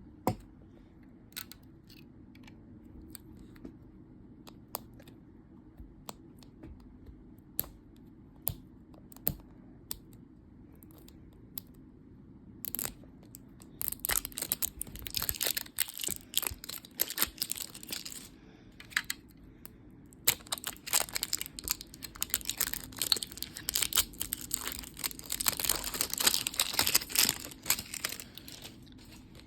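Toy packaging being torn open and crinkled by hand, with scattered light taps and clicks at first, then two long stretches of dense crinkling and tearing in the second half.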